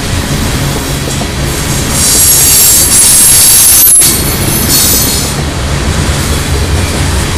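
Loaded railroad tank cars of an oil train rolling through a curve: a steady rumble of steel wheels on rail, with high-pitched wheel squeal from about one and a half to five seconds in, loudest in the middle.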